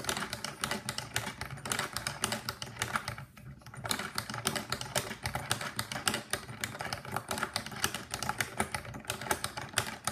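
Hand-cranked cavatelli maker being turned steadily, its crank and rollers clicking and rattling rapidly as spinach dough is fed through, with a brief pause about three seconds in.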